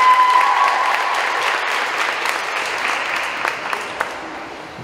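Crowd applauding in a school gym, with a thin, high held tone over the clapping for about the first second. The applause slowly dies down.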